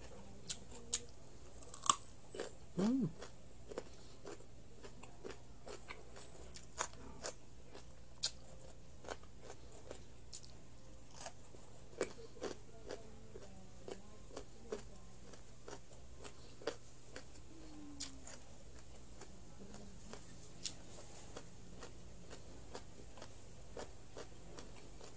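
Raw carrot being bitten and chewed close to the microphone: sharp crisp crunches, the loudest about two seconds in, then irregular crunching through the chewing, over a low steady hum.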